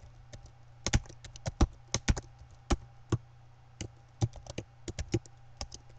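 Computer keyboard being typed on: irregular key clicks, a few a second, some in quick runs, over a low steady hum.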